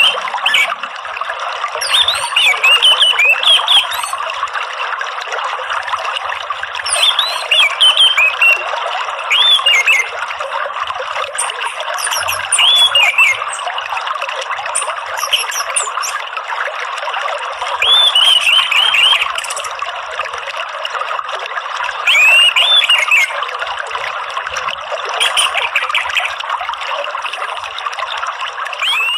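Running water trickling steadily, with an orange-headed thrush (anis merah) singing over it in short phrases of quick, sweeping high whistles that come back every few seconds.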